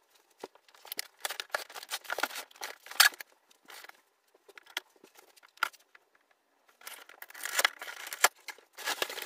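Large cardboard box being handled and opened: irregular scraping, rustling and sharp knocks of cardboard, with a noisier stretch near the end as the lid flap is pulled and pried open.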